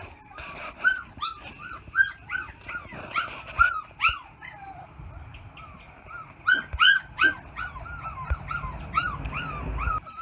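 Young puppies whimpering and yipping: short, high-pitched cries a few times a second, in two runs with a lull in the middle.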